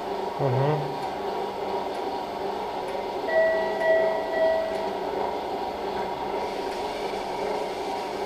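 Steady hum of operating-room equipment running during arthroscopy. An electronic beep tone sounds from about three seconds in for about a second and a half, swelling three times, with a short low sound near the start.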